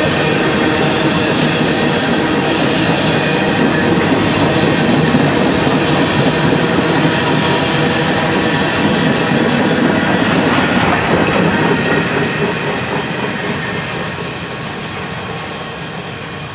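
Freight train of covered hopper cars rolling past, steel wheels running on the rails. The sound is steady and loud, then fades over the last few seconds as the end of the train passes and moves away.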